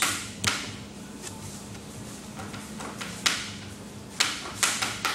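A knock as the phone filming is set in place, then from about three seconds in, sharp separate clicks about half a second apart: a table tennis ball bouncing on the table and off paddles as a rally starts.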